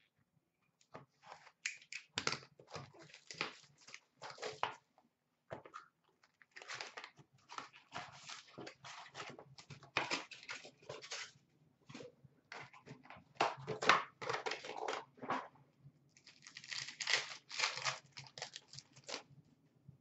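Upper Deck Synergy hockey card packs being torn open and their wrappers crinkled by hand: a run of short, irregular tearing and crinkling noises with a few brief pauses.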